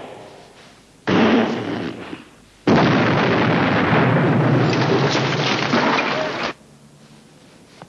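Artillery explosions: one blast about a second in that dies away, then a longer stretch of continuous explosions from just under three seconds in that cuts off suddenly.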